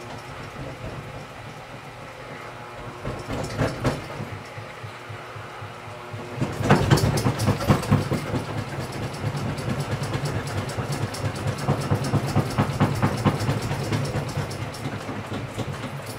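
Motor-driven honey extractor spinning with a steady hum and a fast rhythmic rattle. The rattle gets louder and busier about six and a half seconds in.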